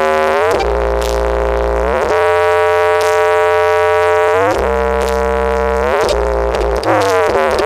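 Loud electronic music through a horeg sound system with eight double subwoofers: long held synthesizer lead notes that slide from pitch to pitch over a heavy, deep bass.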